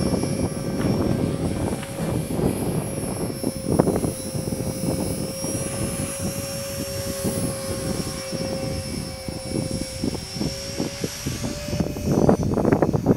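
Esky Belt CP X radio-controlled electric helicopter in flight: a steady whine from its motor and rotor that shifts slightly in pitch, with wind buffeting the microphone and gusting harder near the end.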